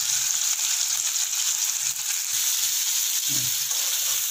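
Freshly added chopped onions frying in hot oil in a pan, a steady sizzle, stirred with a spatula.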